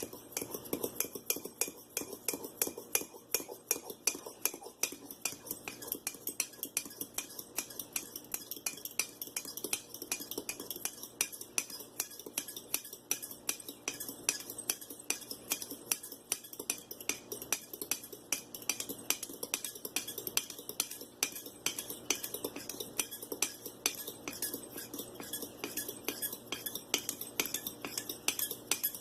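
Fork whisking eggs in a coffee mug, its tines clinking against the mug's sides in a fast, steady rhythm of several clinks a second as the yolks are broken up.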